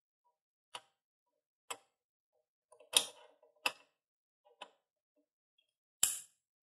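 Sharp metal-on-metal clicks and taps from the duck-head adapter and mount arm of a manual tire changer as they are handled and snugged down. There are about six clicks at uneven spacing, the loudest about halfway through and near the end.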